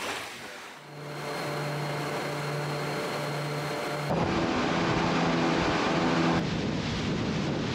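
Motorboat engine running at speed, a steady drone, with water rushing and splashing around the hull. About four seconds in it turns abruptly louder, with a different engine pitch.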